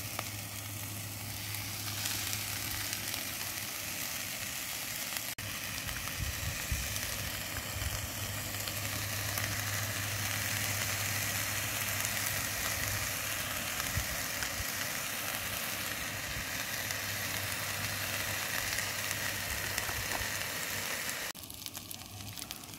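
Chicken and vegetables sizzling steadily in a frying pan on a Primus camping gas stove, cooking down. It gets quieter for the last second or so.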